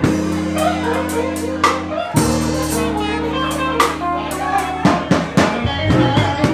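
Live band playing an instrumental passage: a drum kit keeps a beat with snare and cymbal hits over sustained low chords that change every two to three seconds.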